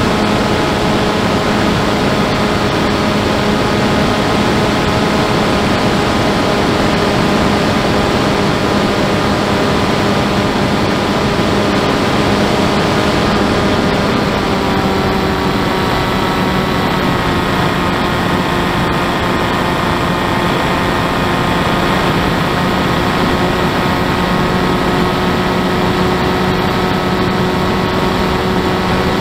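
Electric motor and propeller of an FPV model aircraft running steadily under wind rush, heard from the camera on board. Its pitch shifts slightly about halfway through.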